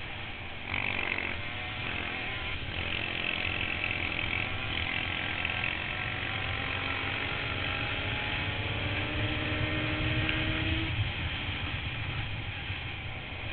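Yamaha Banshee racing quad's two-stroke twin engine running hard on a dirt oval. It gets louder about a second in, and its pitch climbs steadily from about two-thirds of the way through before dropping back.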